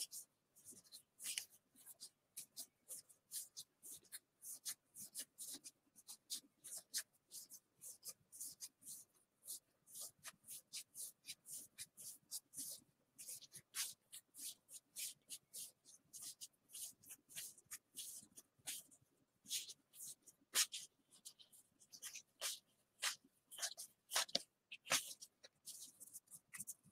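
Gypsy Queen baseball trading cards being thumbed through one at a time, a quick irregular run of light flicks and slides of card against card, several a second.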